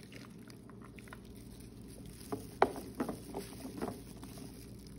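A ladle scooping thick mulberry syrup from a metal bowl and pouring it into a plastic freezer bag: soft sloshing with a few light clinks and knocks, the sharpest about two and a half seconds in.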